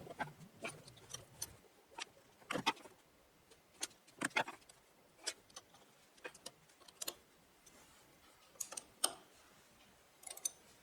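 Light, irregular clicks and taps of hand tools and metal parts on a planer thicknesser's cutter block while a knife is being set and clamped, about one or two a second.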